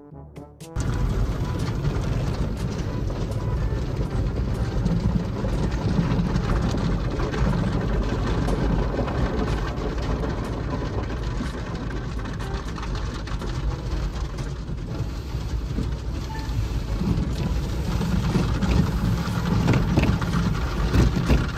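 Automatic car wash heard from inside the car: water and soap spray drumming on the windshield, with the cloth wash strips slapping across the glass near the end. It is a loud, steady rushing noise with a deep rumble that starts about a second in.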